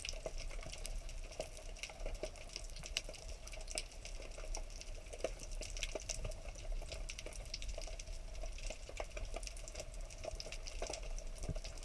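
Underwater ambience heard through an action camera's housing: a constant crackle of scattered small clicks over a low rumble, with a faint steady hum.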